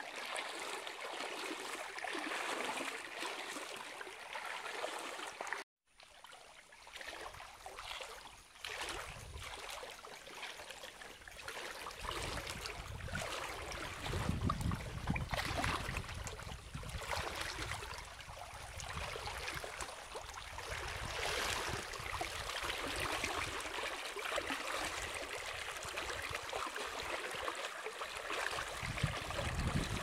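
Shallow river water rushing and trickling steadily. From about twelve seconds in a low rumble of wind on the microphone comes in, and the sound cuts out for a moment near six seconds.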